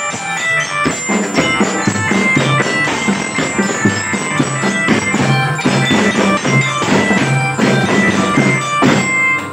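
Children's drum band playing a tune: a reedy melody on melodicas (pianikas) with bell-lyra notes over a steady beat of snare and bass drums.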